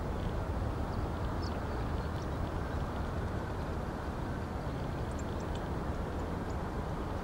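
Steady low rumble of a distant twin-engine Boeing 777-200ER airliner on final approach, even and unchanging, with a few faint short high chirps here and there.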